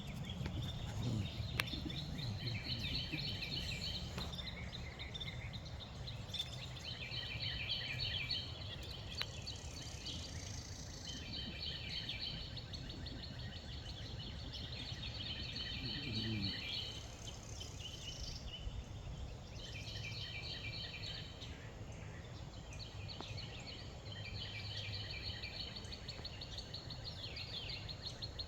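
Songbirds singing repeated phrases of rapid trilled notes, a new phrase every second or two, over a steady low rumble of wind on the microphone.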